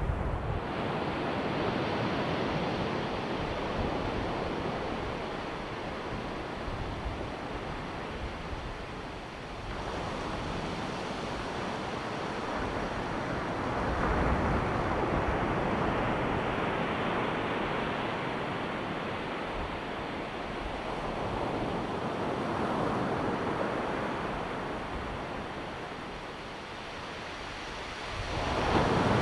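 Ocean surf: waves breaking and washing up the beach in a steady rush that swells and eases every several seconds, with a louder wave breaking near the end.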